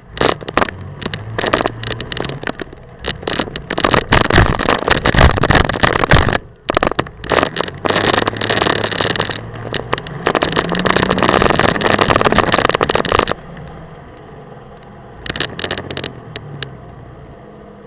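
A Blazer tough truck's engine revving hard as it runs the rough dirt course, with loud bangs and rattling from the body and suspension over the bumps. About 13 seconds in it drops suddenly to a much quieter idle.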